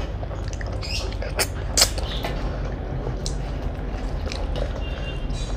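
Eating noises: chewing with a few sharp clicks and taps, over a steady low hum.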